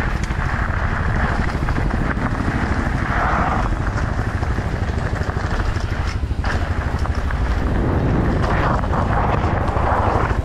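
Motorcycle engine running steadily under way, with wind noise on the microphone that swells twice.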